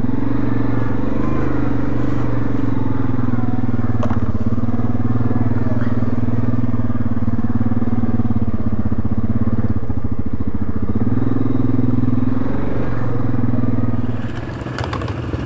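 ATV engine running at a steady pace under the rider, the quad moving along a trail. About a second before the end it drops back and eases off as the machine slows.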